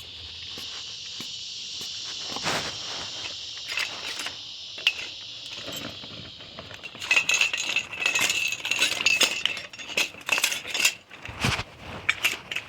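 Metal clicking and clinking of tools and parts on a door knob lock as it is being bypassed, dense and loud from about halfway in, over a steady high hiss in the first half.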